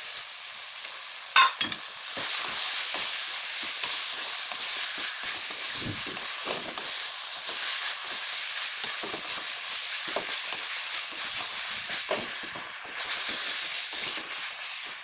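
Mutton curry sizzling in a cooking pan while a spoon scrapes and knocks against the pan as it is stirred, with two sharp clinks about a second and a half in.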